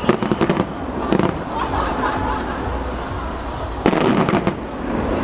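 Skyscraper New Year's fireworks display: rapid volleys of sharp bangs at the start, again about a second in, and near the four-second mark, with crackling shells filling the gaps between.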